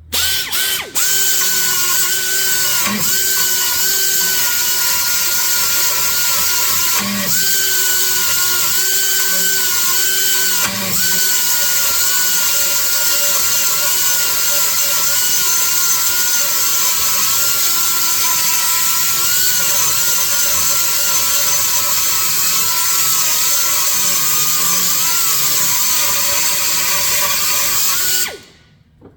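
Die grinder running, a steady high whine with brief dips about 3, 7 and 11 seconds in, as it grinds a hole out wider to fit a part. It cuts off suddenly near the end.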